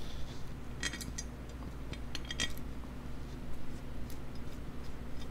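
Light metallic clinks of small bolts and hand tools against the aluminium rocker box cover of a Harley-Davidson Sportster as its Allen bolts are started. There are two short clusters of clinks, about a second in and again around two and a half seconds in.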